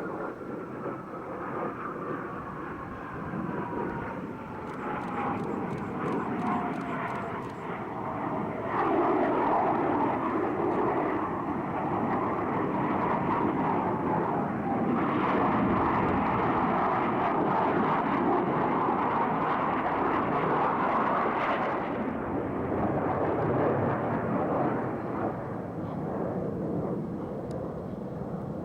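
Blue Angels F/A-18 Hornet jets flying past: a whine that falls steadily in pitch over the first several seconds, then a loud, steady jet roar for about a dozen seconds that eases off near the end.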